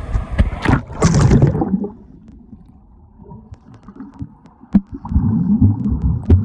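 Water splashing loudly at a river's surface for the first couple of seconds as the camera goes under. Then comes the muffled underwater sound of the river: low rumbling with scattered sharp clicks, and from about five seconds in louder thumps and rushing as a swimmer strokes past.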